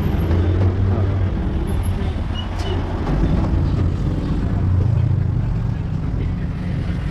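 Street traffic: vehicle engines running steadily past, with people talking in the background.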